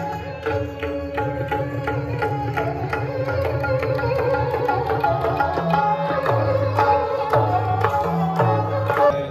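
Indian classical music: fast, dense tabla strokes over a sustained melody, with the low drum notes stepping up and down in pitch in the second half.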